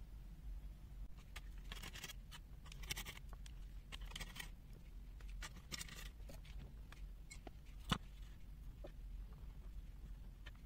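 Faint scraping and scattered clicks of hand tools working to pry open part of a multimeter's internals, with one sharper click about eight seconds in.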